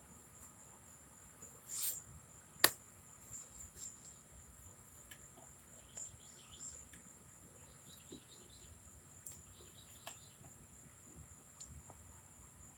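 Crickets chirping in a steady high trill in the background. A brief rustle comes just under two seconds in, and a sharp click follows about a second later, which is the loudest sound; a few small clicks come later.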